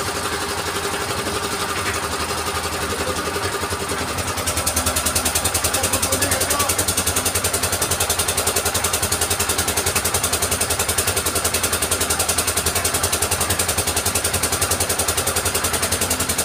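The engine of a concrete mixer and lift machine running steadily. About four seconds in it gets louder and settles into a fast, even beat as the hoist hauls its bucket up the mast.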